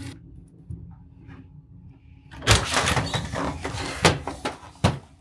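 A glass-paned front door being opened: a quiet room for about two seconds, then a rush of noise with sharp clicks and knocks from the door and latch, the last shortly before the end.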